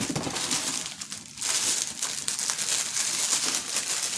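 Packaging being crinkled and rustled in the hands, a dense crackle that grows louder about a second and a half in.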